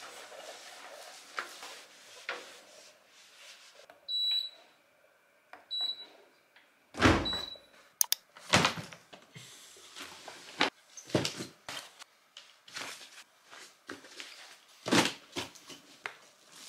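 Household cleaning and packing noises: a cloth wiping, then scattered knocks and clatters of things being handled. Three short high electronic beeps come between about four and eight seconds in, and a heavy thump about seven seconds in.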